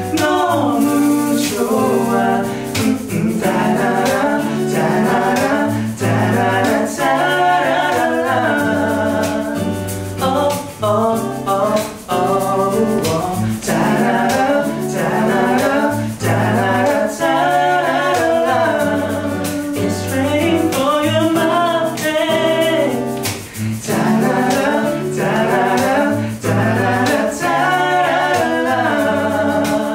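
Live acoustic pop song: two male voices singing together in harmony over a strummed acoustic guitar, with a hand shaker keeping the beat.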